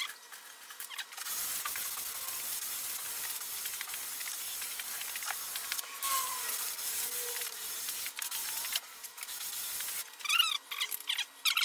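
Hand sanding the edge of a mahogany plank with a folded sheet of sandpaper: a steady rasping hiss for most of the time, breaking into short separate strokes near the end.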